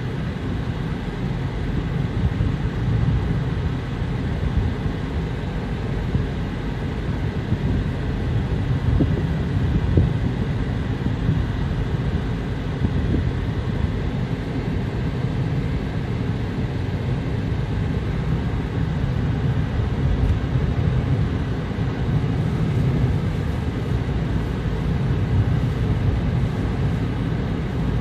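Steady low rumble inside a moving car's cabin: road and wind noise while driving through a sandstorm, with one brief thump about ten seconds in.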